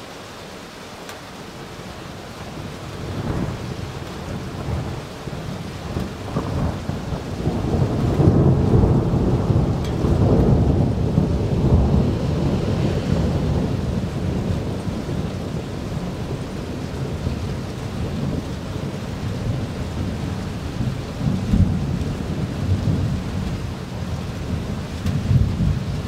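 Thunder rumbling over steady rain. A long rolling peal builds a few seconds in, is loudest a third of the way through, then trails off slowly, and a second rumble swells near the end.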